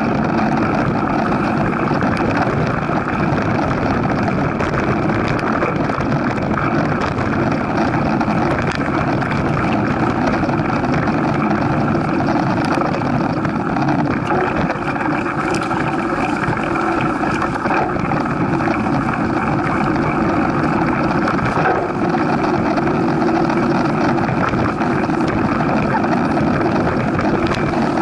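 Steady rush of wind on the microphone of a riding cyclist's camera, mixed with the rolling crunch of mountain bike tyres on a sandy, gravelly forest track.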